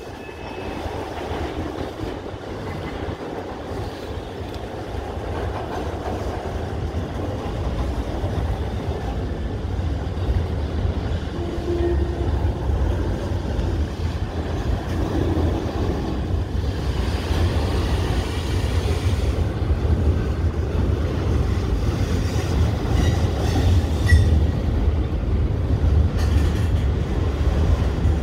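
Norfolk Southern mixed freight train rolling past, autorack cars among them: a steady low rumble of wheels on rail that grows gradually louder.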